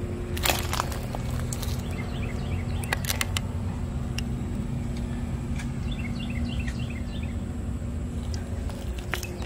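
Steady rumble of road traffic, with a bird chirping in two quick runs of short high notes, about two and six seconds in, and a few sharp clicks.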